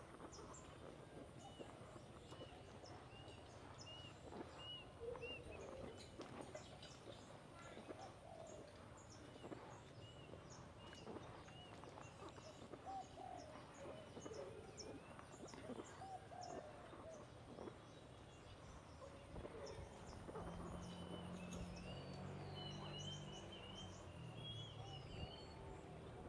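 Faint birdsong: one bird repeats a short chirp about twice a second, with scattered higher chirps from other birds. A faint low hum joins about twenty seconds in.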